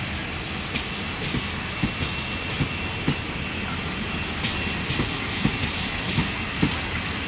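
Passenger sleeper coaches of an Indian Railways express rolling past at speed. Their wheels knock sharply on the rails one to two times a second over a steady rumble and a high hiss.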